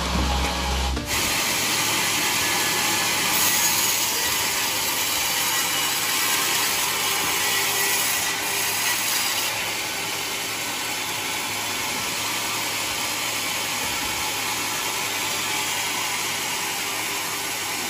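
Sawmill saw cutting through a mahogany log, a steady, even noise of blade in wood that drops a little in level about ten seconds in.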